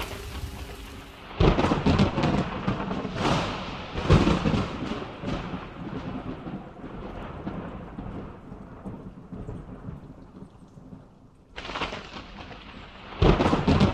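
A rainstorm: rain hissing, then loud rumbles that come and go several times, about a second in, around three to four seconds in, and near the end.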